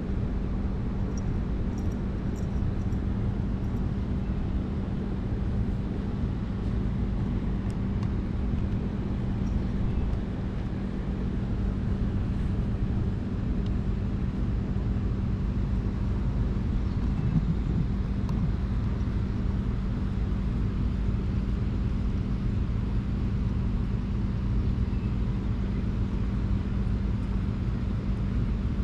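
Steady low rumble with a steady hum underneath, unchanging throughout.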